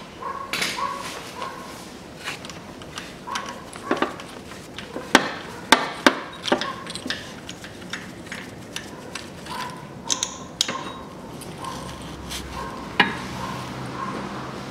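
A socket wrench ratcheting and metal tools clinking as the bolt of a car's belt tensioner pulley is undone and the pulley is taken off. Irregular sharp clicks and knocks, with the loudest clanks about five to six seconds in and again near the end.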